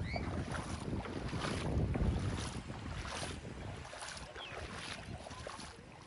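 Shallow seawater washing and fizzing over wet sand, with wind rumbling on the microphone that is strongest in the first few seconds and then eases off. A couple of brief high cries sound faintly, once at the start and once about four seconds in.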